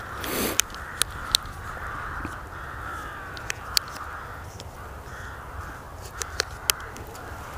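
Crows cawing repeatedly in the background, with a few sharp clicks from the plastic chocolate cup being handled over the bowl.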